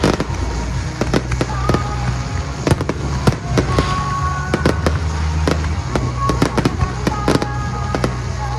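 Aerial fireworks shells bursting in rapid succession: a dense run of sharp bangs and crackles throughout.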